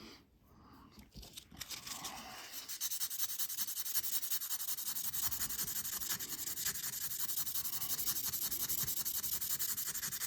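Sandpaper rubbed by hand over a vintage Seiko 5 watch case in rapid back-and-forth strokes, polishing out scratches. The scratchy rubbing starts about a second and a half in and keeps up a quick, even rhythm.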